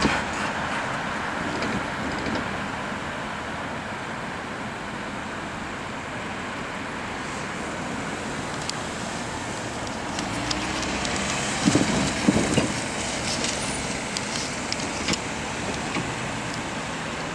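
Road traffic going over a railway level crossing, with a cluster of louder thumps about twelve seconds in.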